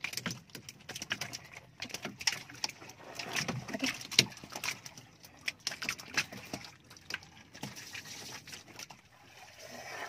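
Irregular knocks and slaps on a small wooden fishing boat, with light water splashing.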